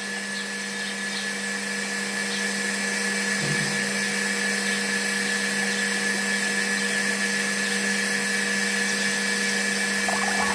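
Small DC electric motor running steadily with a constant hum and hiss, turning a belt drive on a miniature juicer.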